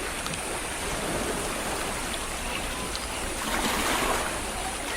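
Steady rushing noise, swelling a little about three and a half seconds in.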